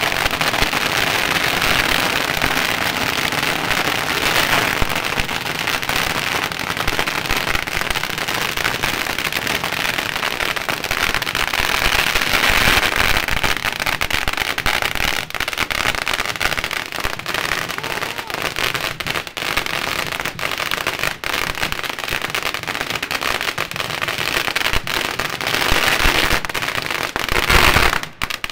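Long strings of firecrackers hanging from a frame going off in a dense, continuous rattle of rapid pops, loudest near the end, then suddenly thinning to scattered bangs just before the end.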